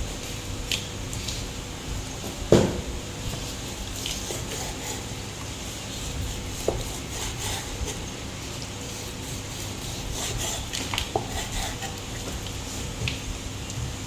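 Kitchen handling sounds: scattered light clinks and clicks of utensils and dishes, with one louder knock about two and a half seconds in, over a steady low hum.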